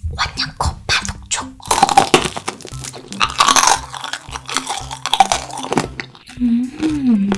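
Close-up crunching and chewing of a roasted marshmallow tanghulu, its hard candy shell cracking between the teeth, over background music. Near the end there is a short hum that rises and falls.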